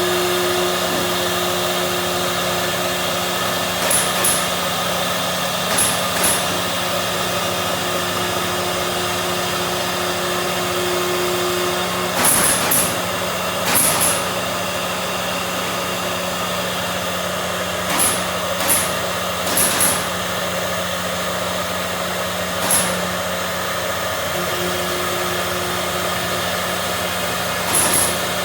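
CNC machine running with a steady motor hum and hiss; a higher tone comes and goes, and short sharp hissing blips sound at irregular intervals.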